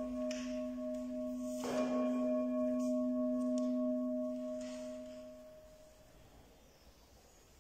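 A low-pitched bell is struck about two seconds in, while the ringing of an earlier strike still sounds. Its steady tones fade away by about six seconds. It is the bell rung as the consecrated bread is elevated in the Eucharistic prayer.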